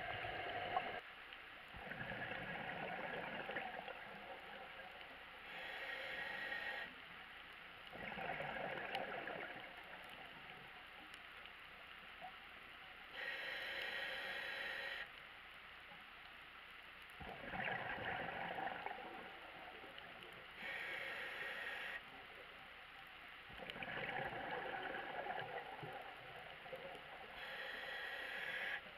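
Scuba diver breathing through a regulator underwater: slow, even breaths, each a short hiss of air drawn through the regulator alternating with the gurgling rush of exhaled bubbles, about four breaths in all.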